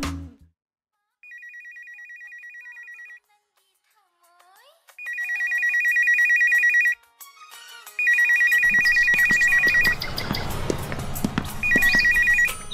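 A push-button desk telephone's electronic ringer trilling in four bursts, a rapid two-tone warble; the first ring is faint and the others are loud. About two-thirds of the way through, a low background noise comes in under the rings.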